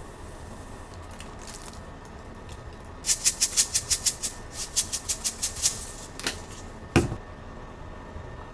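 Whole sesame seeds rattling in a plastic shaker bottle as it is shaken over a bowl, about six quick shakes a second for nearly three seconds. A single sharp knock follows near the end.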